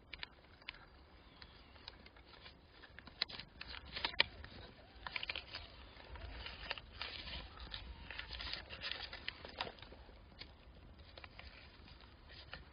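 Newspaper bedding rustling and crinkling under newborn kittens squirming as they nurse, with scattered small clicks, busiest in the middle.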